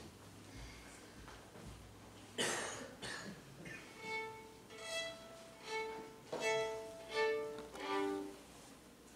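Solo violin playing a short phrase of about six sustained bowed notes, some sounded as two-note chords, ending on lower notes. A brief loud noise comes about two and a half seconds in, before the playing starts.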